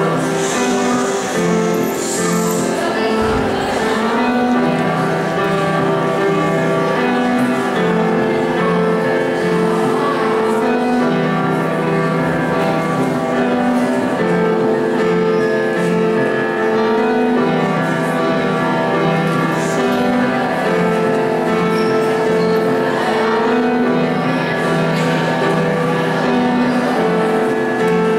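Upright piano being played, a continuous piece of chords and melody with notes held a second or two each.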